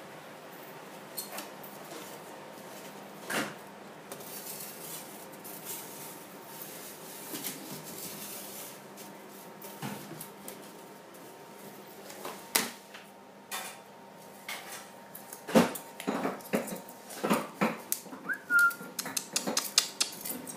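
Polystyrene pizza board knocking, tapping and scraping on a tiled floor as a Scottish terrier puppy plays with it, the clatter growing faster and louder over the last few seconds. One short squeak near the end.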